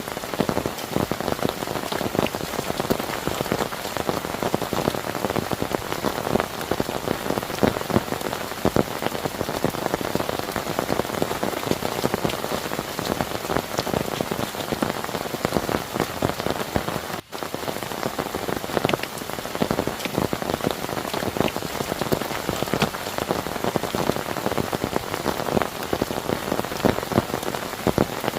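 Heavy rain falling steadily, a dense patter of drops striking a surface. It cuts out for an instant about two-thirds of the way through.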